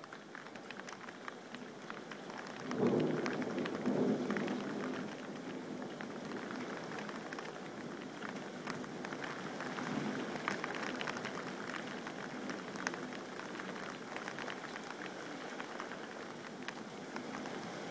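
Steady rain with many sharp drop ticks, pattering on a window. About three seconds in, a low rumble of thunder swells twice over two seconds, then fades.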